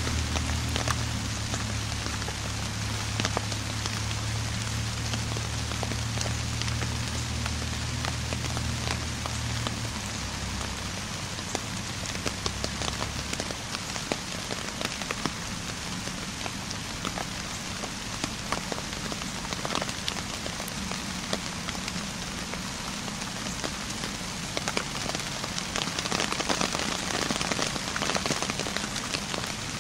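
Steady patter of rain with many small sharp drop hits. A low hum underneath dies away between ten and thirteen seconds in.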